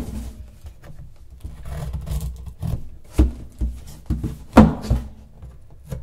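A cardboard smartphone retail box being handled and turned over on a wooden desk. It gives several knocks and thumps against the desk, the loudest around the middle, with cardboard rubbing and scraping between them.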